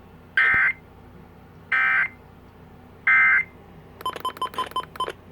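EAS end-of-message data signal: three short bursts of warbling digital data tone about a second apart, closing the Child Abduction Emergency alert. A quick string of short electronic beeps follows, about seven a second, for about a second.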